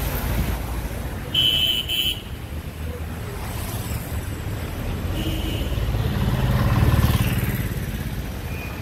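Road traffic: a steady rumble of motor vehicles, swelling to its loudest about seven seconds in as a vehicle passes close by, with two short high beeps about a second and a half in.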